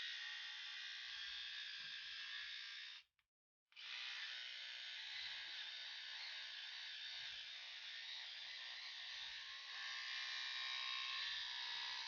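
Small battery-powered micro-groomer (MicroTouch SwitchBlade) running with a steady buzz. It cuts off briefly about three seconds in, then starts again and runs on before stopping abruptly.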